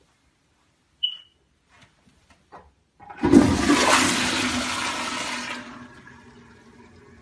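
Toilet flushing: a short high squeak about a second in, then the rush of the flush from about three seconds in, easing after a couple of seconds into the quieter hiss of the tank refilling.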